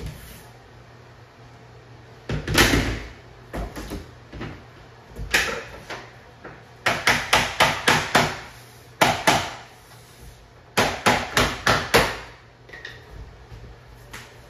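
Vinyl floor planks being tapped down into place: a few single knocks, then runs of five or six quick taps at about three a second.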